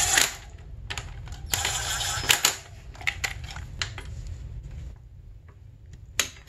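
A cordless ratchet runs briefly on the brake caliper mounting bolts, at the start and again about two seconds in. Then a click-type torque wrench clicks as it tightens the bolts to 22 ft-lb, with two sharp clicks near the end.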